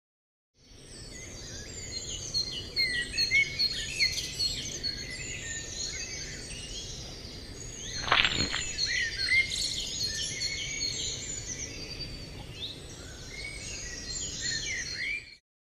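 Many small birds chirping and twittering over a steady outdoor noise bed, with a single sharp hit about eight seconds in; the sound cuts off abruptly near the end.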